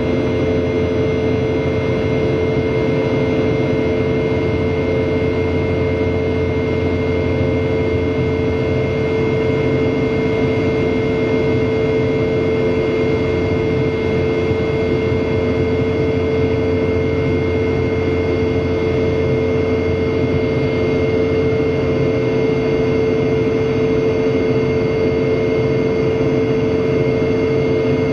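Boeing 717-200's rear-mounted Rolls-Royce BR715 turbofan heard from inside the cabin at climb power: a loud, steady drone with a strong steady hum and several higher steady tones over it. This is the 'buzzsaw' tone of the fan blade tips running supersonic at high thrust.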